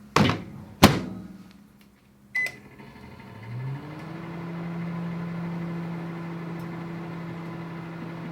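Microwave oven being started: two sharp clicks, a short keypad beep, then the oven starts up about three and a half seconds in with a rising hum that settles into a steady low running hum.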